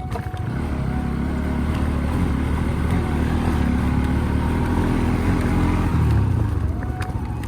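Royal Enfield Bullet's single-cylinder engine running under load, pulling the motorcycle over a rough dirt road, its exhaust beat steady with small rises and dips in throttle.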